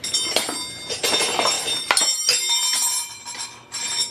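Metal hand tools and bolts clinking against engine parts: several sharp clinks with a bright ringing after them, the loudest about two seconds in.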